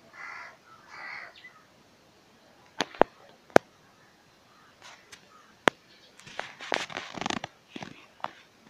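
Two harsh caws of a crow at the start, then a few sharp, loud pops spaced out over the next few seconds and a dense burst of crackling clicks about two-thirds of the way in.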